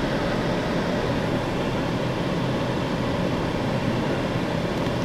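Steady rumble and hiss inside a car's cabin, the sound of the vehicle running, with no distinct events.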